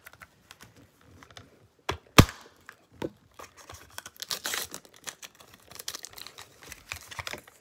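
Surprise-ball wrapping being torn and crinkled by hand as it is unwound, in irregular rustles and clicks, with one sharp click about two seconds in.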